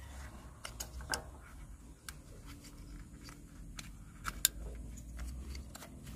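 Scattered small clicks and taps of hands fitting a replacement ignition coil onto the engine, the loudest about four and a half seconds in.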